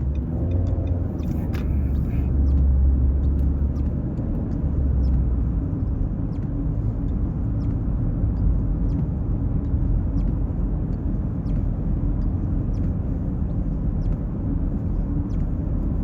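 Car road noise: a steady low rumble of a car on the move, heaviest a couple of seconds in, with faint light ticks.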